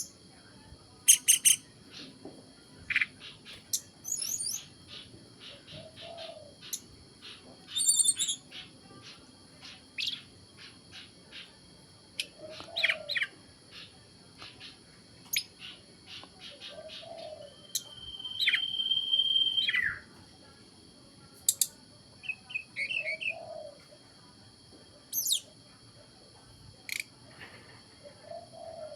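A young captive sulgun songbird practising its song: scattered short chirps and quick trills with pauses between them, and one held whistle-like note of about a second and a half near the middle. A soft low call repeats about every five or six seconds behind it.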